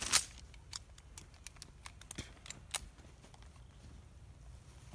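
Faint rustling and scattered light ticks of a person shifting on dry grass and leaves and handling gear at the belt, with one short louder rustle right at the start; no gunshots.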